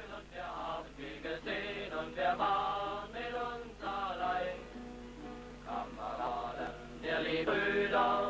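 Music with voices chanting together.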